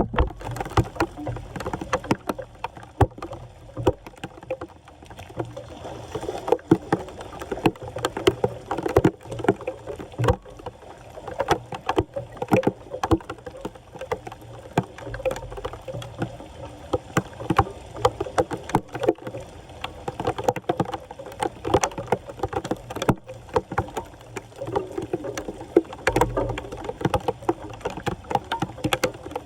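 Floodwater splashing and sloshing, with frequent sharp knocks and scrapes, as a clogged street storm drain is cleared of debris.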